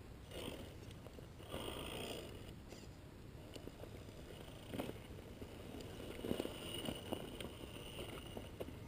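Gmade Sawback RC scale crawler with a Holmes Hobbies 27-turn brushed motor climbing rock and snow: the motor and gears whine faintly in short bursts of throttle, with scattered clicks and scrapes from the tyres and chassis on the rock.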